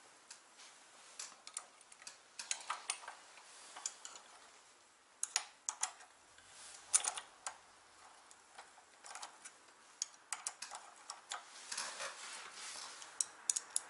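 Irregular small metal clicks and ticks of bolts and a T-handle hex key being worked by hand, as the bolts are threaded loosely into a scooter steering-damper bracket.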